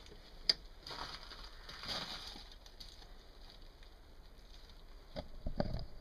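A sharp click, a short hiss, then a few dull thumps near the end, with no engine running.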